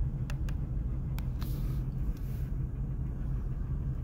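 Pickup truck's engine and road noise heard from inside the cab, a steady low rumble, with a few light clicks in the first second or so.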